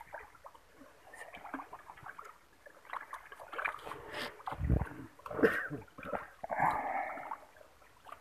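Muddy water sloshing and splashing, with the rustle of a plastic-sheet net being dragged through a shallow pool. The splashes come irregularly and grow busier after the first few seconds, with one low thud a little past the middle.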